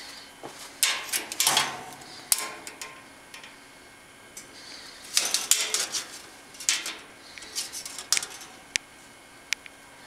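Handling noise from a steel tape measure and a wire bird cage: irregular clattering and rattling in several bunches, ending in a few single sharp clicks.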